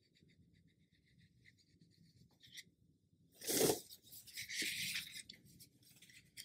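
A paper tissue rustling as it is pulled out and handled, with a sudden loud rustle about three and a half seconds in and a second of crinkling after it. Around it there is faint scratching of a brush being worked over watercolour paper to lift paint.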